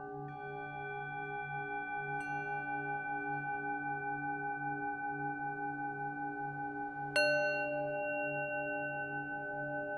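Singing bowls tuned to the tone D ringing on with a slow wavering pulse. Fresh strikes come in just after the start and about two seconds in, and the loudest comes about seven seconds in, each adding new long-ringing tones.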